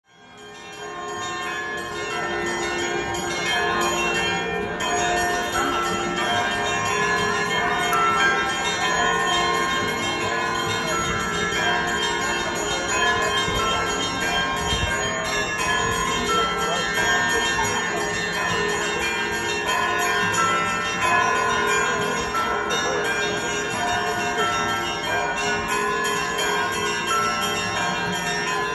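Russian Orthodox monastery bells ringing continuously, many bells of different pitches struck in overlapping succession. It fades in over the first second or two.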